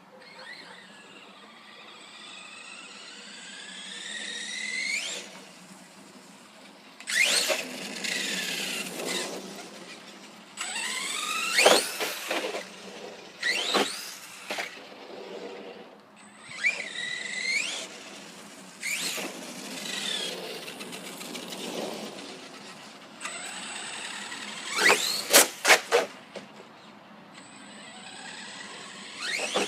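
Redcat Earthquake 8E RC monster truck's brushless electric motor whining in repeated runs, its pitch sliding up and down as the throttle is worked. A few sharp knocks break in, a cluster of them near the end.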